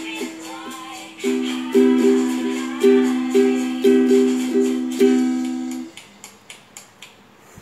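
Ukulele played by hand: a second of soft notes, then about eight loud strummed chords, each ringing on, dying away about six seconds in. A few faint clicks follow.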